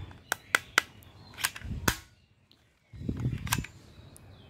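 Green plastic toy ball gun clicking sharply about six times as it is worked by hand, with handling rustle between some of the clicks.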